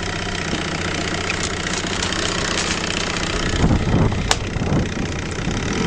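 1974 Johnson 6 hp two-stroke outboard motor running steadily. About three and a half to five seconds in there are a few knocks and one sharp click.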